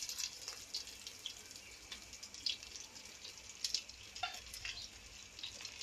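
Chopped onions sizzling in hot oil in a pan, a steady hiss with scattered crackles and light taps. The sizzle is loudest at the start and settles within the first second.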